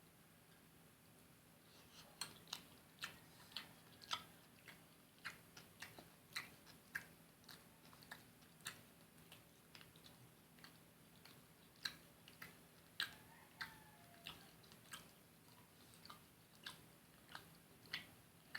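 A person chewing fried fish: a run of short, sharp mouth clicks and smacks, about two a second, starting about two seconds in.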